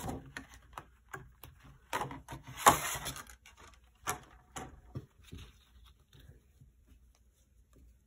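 Clear plastic packaging tray crinkling and clicking as a cross stitch kit's contents are lifted out of it, loudest about two to three seconds in. After that there is lighter, scattered rustling of paper and card thread organizers being handled.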